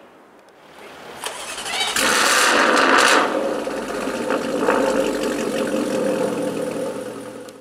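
Jaguar F-Type R's supercharged 5.0-litre V8, with a decatted Capristo exhaust, starting up: a loud flare about two seconds in, then settling to a steady idle.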